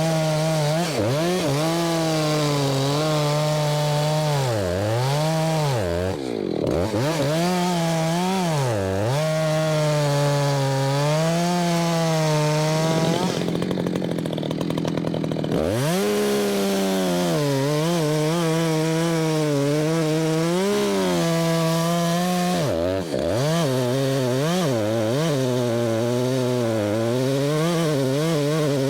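Two-stroke Husqvarna chainsaw cutting through ash logs. The engine pitch sags again and again as the chain bites under load, then climbs back to full revs.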